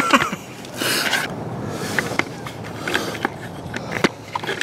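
Floor jack's wheels rolling and scraping over a concrete floor, loudest about a second in, followed by scattered light clicks and knocks.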